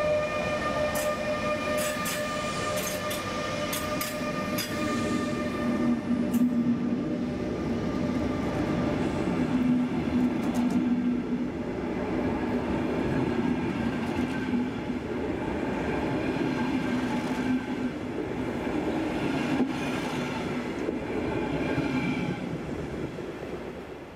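DB class 182 (Siemens Taurus) electric locomotive pulling away past, its traction converters giving a steady high whine over the first few seconds while the wheels click over rail joints. The double-deck coaches then roll by with a steady rumble, which dies away near the end.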